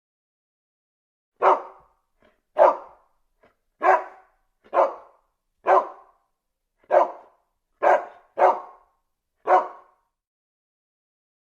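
A dog barking: nine single, separate barks about a second apart, starting about a second and a half in.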